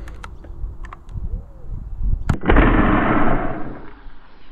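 ZWQ S100 Nerf sniper blaster firing a dart: a sharp click about two seconds in, then a loud burst of noise that lasts nearly two seconds and fades, with another sharp crack near the end.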